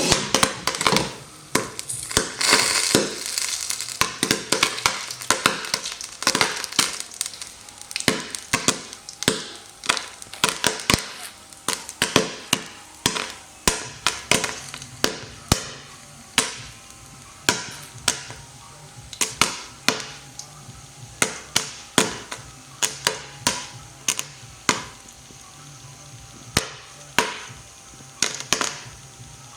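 Popcorn kernels popping as they cook: sharp, irregular pops, one to three a second, throughout.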